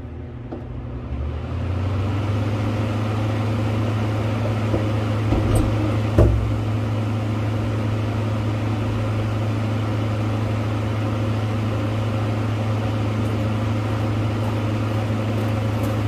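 Frigidaire window air conditioner switching on: its fan and compressor come up over the first two seconds and settle into a steady low hum. Two short knocks come about five and six seconds in.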